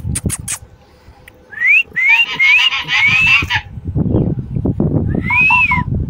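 Alexandrine parakeet whistling: four short rising whistles in quick succession, with a rough edge, then one whistle that rises and falls near the end.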